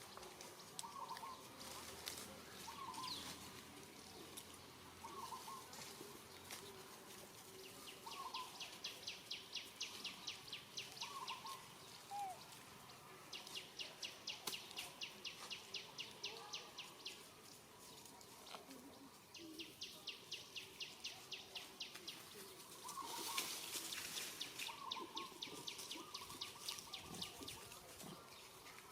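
Outdoor animal calls: a rapid high trill of evenly spaced clicks, about nine a second, comes in bursts of three to four seconds, four times. Between the bursts, short chirps sound every second or two.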